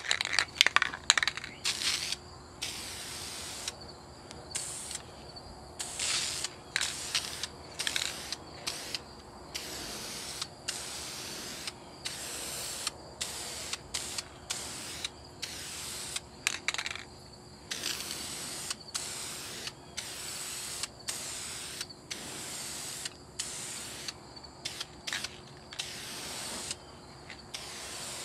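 Aerosol spray paint hissing onto a plastic kayak paddle blade in many short spurts, each well under a second to about a second long.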